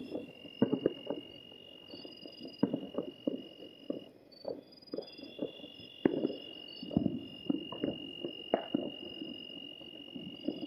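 Distant firecrackers and other explosives going off in irregular, overlapping pops and bangs, each trailing a short echo, with a louder bang about six seconds in. Night insects trill steadily underneath.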